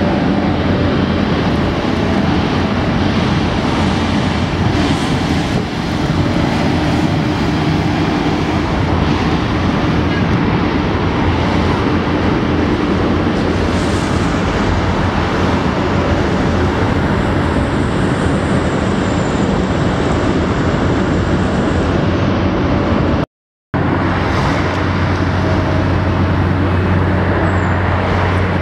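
Steady road traffic on a wide city avenue: cars passing, with a constant engine hum underneath. The sound cuts out for a moment near the end.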